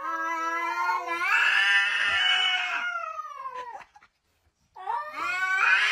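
A domestic cat caterwauling in a standoff with another cat: a long, drawn-out, wavering yowl rising and then falling in pitch for nearly four seconds, a brief silence, then a second yowl that starts about a second later. It is a threat yowl, the warning a cat gives before a fight.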